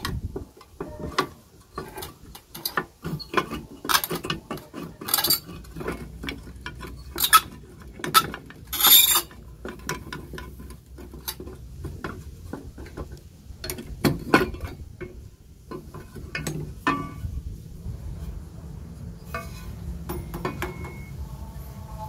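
Scattered metallic clicks, knocks and scrapes of a rusty Smith-Corona typewriter being dismantled by hand, its metal body cover worked loose and lifted off. The loudest is a half-second rasp about nine seconds in.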